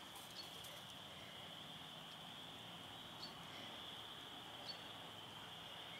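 Quiet outdoor ambience: a faint, steady high-pitched hiss with three or four brief, faint chirps.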